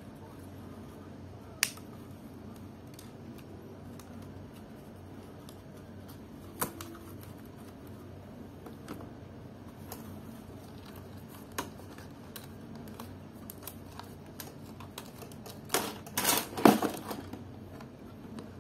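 Sharp plastic clicks as a replacement laptop keyboard for a Samsung NP300E4X is pressed and seated into the palmrest, a few single clicks spread out and then a quick cluster of louder clicks and snaps near the end.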